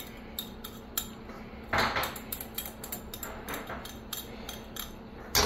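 A spoon and a whisk clinking and scraping against a stainless steel mixing pot and a glass measuring cup while biscuit batter is stirred: light ticks throughout, with one louder scrape about two seconds in.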